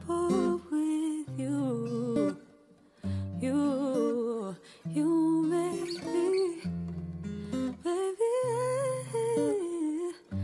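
Solo acoustic guitar accompanying a woman's wordless vocal melody, humming and gliding ad-lib runs over low held bass notes, with a brief pause about two and a half seconds in.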